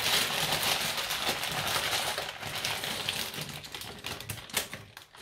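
Dry pasta poured from a crinkling plastic bag into a pot, the pieces rattling out in a dense stream of small clicks that thins out near the end.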